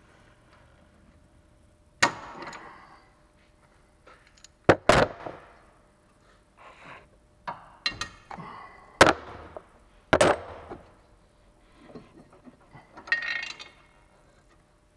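Metal hand tools clanking and knocking against steel suspension parts while a stabilizer bar end link is worked loose: about five sharp metallic knocks that ring briefly, spaced irregularly, with lighter taps between and a short rattle near the end.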